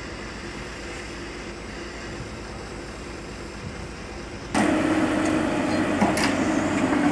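Steady low rumble of the lowbed truck's engine idling. About four and a half seconds in it cuts suddenly to the much louder, steady running of a Komatsu PC200 excavator's diesel engine, with a couple of sharp knocks about a second and a half later.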